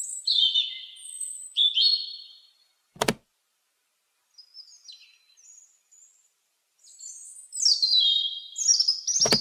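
Robin singing: short, high warbled phrases, loud at first, faint in the middle and loud again near the end. A sharp click comes about three seconds in and another near the end.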